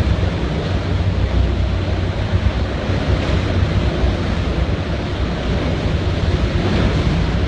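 Hurricane-force wind in the eyewall of a Category 5 hurricane, with gusts reported at 185: a steady, loud rushing with a deep rumble where it buffets the microphone.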